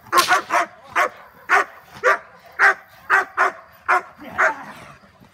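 A dog barking over and over, about two barks a second, at a helper in protection training.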